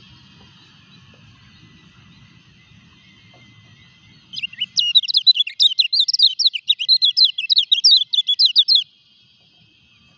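Caged white-eye (kecial kuning), a moulting bird, singing one rapid phrase of high, quick twittering notes, about seven a second, that starts about four seconds in and lasts about four seconds.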